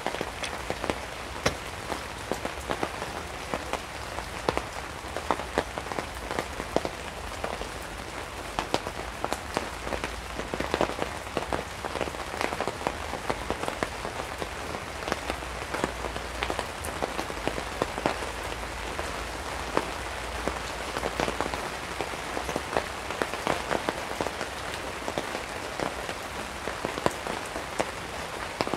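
Steady rain falling on a nylon tarp and tent, a constant patter dotted with many sharp, irregular drop taps.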